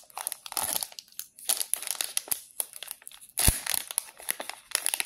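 Plastic candy wrapper crinkling and being torn open by hand, with irregular crackles and one sharp snap about three and a half seconds in.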